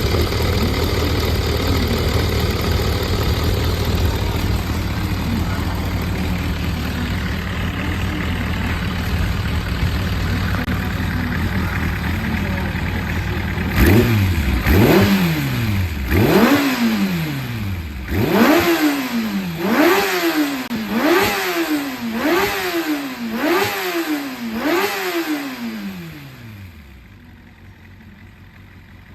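Kawasaki ZRX400 inline-four motorcycle engine idling steadily, then revved in about nine quick throttle blips, each rising and falling sharply, a little over a second apart. Near the end it stops. The seller describes it as running without abnormal noise.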